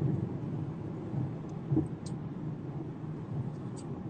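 Low road and engine rumble inside a moving car's cabin, with a short low thump just under two seconds in.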